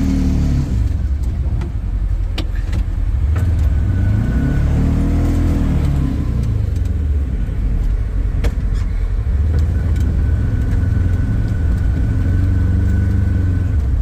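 Engine of a snow-plowing machine running hard, its revs swelling up and falling back several times as it pushes snow, with scattered knocks and clatter. A thin high whine rides over it in two stretches.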